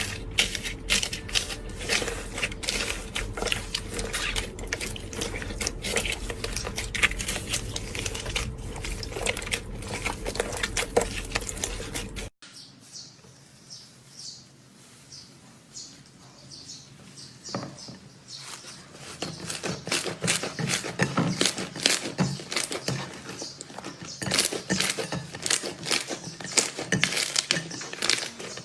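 Hands squeezing and poking slime, making a fast, irregular crackle of sticky clicks and pops. About twelve seconds in it cuts to a quieter stretch of clicking that grows busier again.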